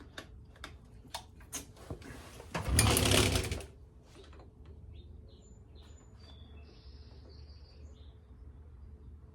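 Scattered small clicks of hands working on motorcycle wiring, then a loud rasp about three seconds in that lasts about a second. Faint short high chirps like bird calls follow.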